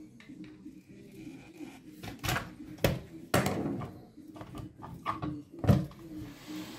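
Scattered clicks and knocks of a rotary hammer's plastic housing and metal motor parts being handled as it is taken apart and the armature is pulled out. The loudest knock comes near the end.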